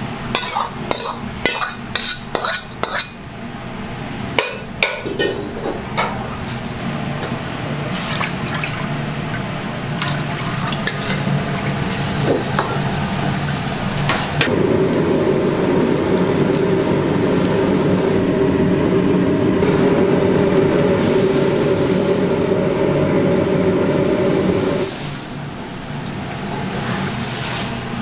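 Metal wok ladle scraping and clinking against a carbon-steel wok as fried rice is tipped out, a quick run of clinks over the first few seconds. Under it runs the steady rush of the kitchen's wok stove, which grows louder for about ten seconds from just past the middle while liquid heats in the emptied wok.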